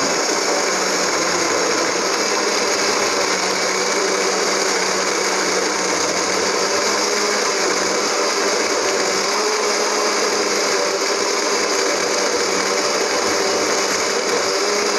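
Electric countertop blender running steadily at full speed, its motor giving a constant hum as it blends mango, ice, sugar and water into juice.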